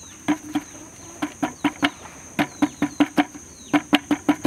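Chickens clucking in short, sharp, irregular notes, a few a second.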